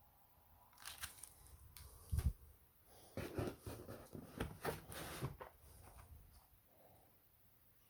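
Handling noise: packaging rustling and clicking, with a short low thump about two seconds in.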